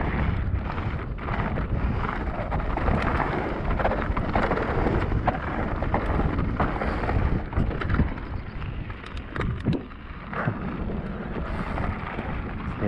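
Wind rushing over the microphone while a Cube Stereo Hybrid 160 e-mountain bike rides a rough trail, its tyres rumbling and the bike clattering with many short knocks over the ground.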